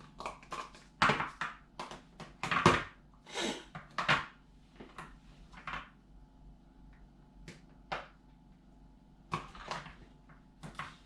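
Slime being squeezed and worked in the hands: a string of short, irregular squelches and clicks, loudest about two and a half seconds in and sparser in the second half.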